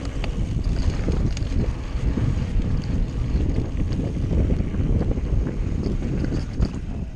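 Mountain bike running fast down a dirt trail: steady wind noise on the microphone over the rumble of the tyres on the dirt, with scattered small clicks and rattles from the bike.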